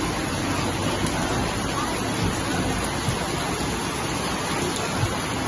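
Heavy rain pouring steadily onto a flooded street.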